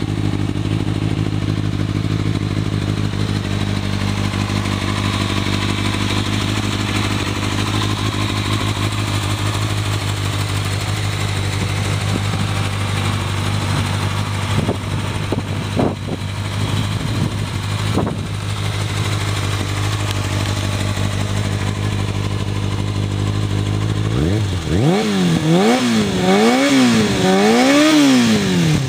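Kawasaki Ninja ZX-6R inline-four motorcycle engine idling steadily, then revved in about four quick blips near the end, the pitch rising and falling with each.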